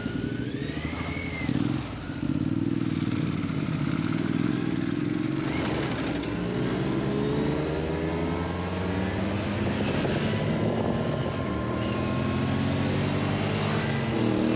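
Motorcycle engines running on the road, their tones climbing steadily in pitch through the second half as the bikes speed up.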